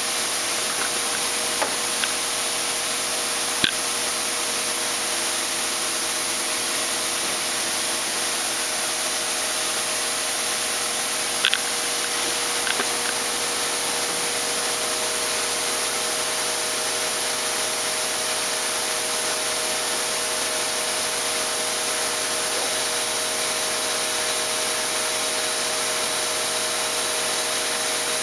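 Hitachi Seiki HG400 III CNC horizontal machining center running: a steady hiss over a steady hum, with a few short clicks early on and about halfway through.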